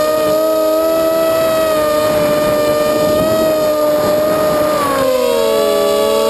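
Eachine Racer 250 quadcopter's four 2204 2300KV brushless motors and propellers whining in flight, several tones at slightly different pitches running together. About five seconds in the pitches shift, some falling and others rising, as the motor speeds change.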